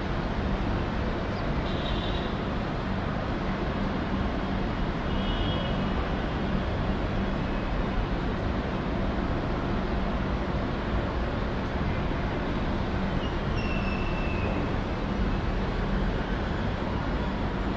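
Steady wash of city traffic noise, with a few faint brief high-pitched tones over it.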